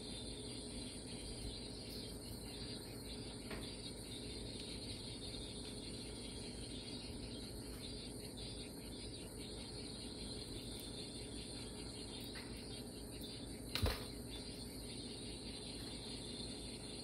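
Steady room tone: a low hum and hiss with a faint steady tone, broken by one sharp click about fourteen seconds in.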